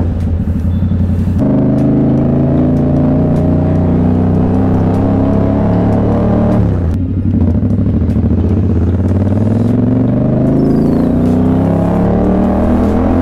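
2021 Yamaha MT-07's CP2 parallel-twin engine through an Orion full-system exhaust, accelerating on the road. The pitch climbs for several seconds, dips briefly about seven seconds in, then climbs again.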